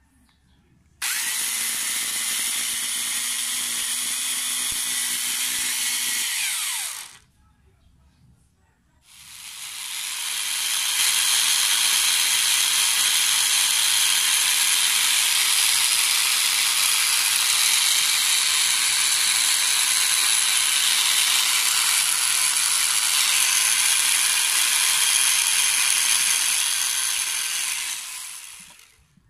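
Bosch GWS 6-100 angle grinder motor running twice. The first run, of about six seconds, is with its damaged, sparking commutator. The second, after the armature repair, spins up over about two seconds, runs steadily and winds down near the end.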